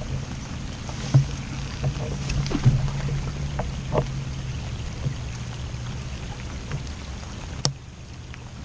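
Steady low motor hum aboard a fishing boat, with scattered clicks and knocks from a fishing rod and reel being cast and handled; the hum drops away near the end.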